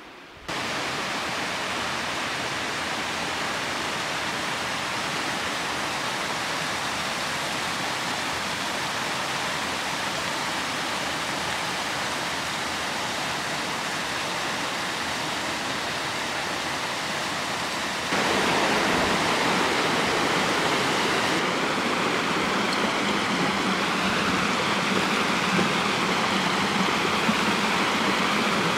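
Mountain stream rushing over rocks, a steady wash of water that gets suddenly louder about two-thirds of the way through. A faint wavering high-pitched sound runs over it near the end.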